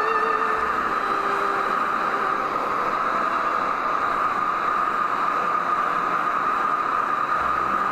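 Hair dryer blowing steadily on a wet cat's fur, an even rush of air with a constant hum through it.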